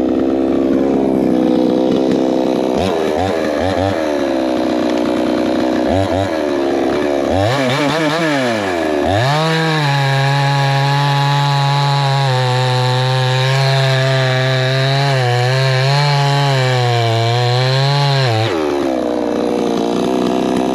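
Wemars gas chainsaw's small two-stroke engine idling, blipped a few times, then run up to high revs and held there for about nine seconds with slight dips in pitch. It drops back to idle and is shut off suddenly.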